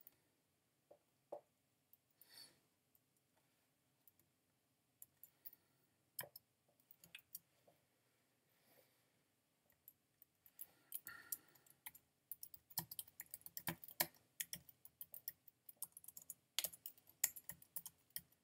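Typing on a computer keyboard: a few scattered keystrokes at first, then a steady run of quick keystrokes from about halfway through.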